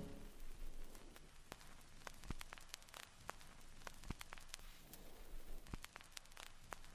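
Faint static hiss with low hum and scattered clicks and pops: the surface noise of an old, worn film soundtrack. The last of the music fades out at the start.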